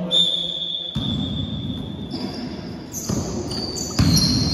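A basketball being dribbled on a sports hall floor, bouncing with reverberant thuds, while basketball shoes squeak on the court, most of the squeaks near the end.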